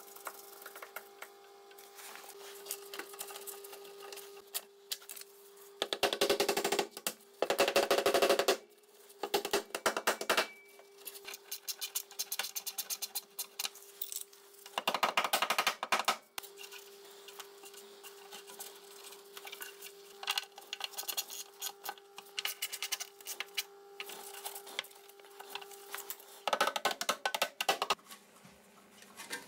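Bursts of rapid clicking and rattling from hand tools working on steel brake pipe fittings, four times, over a steady hum.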